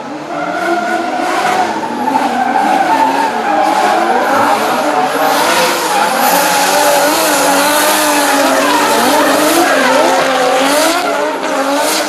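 Two drift cars sliding in tandem, their engines revving up and down while the tyres squeal and skid.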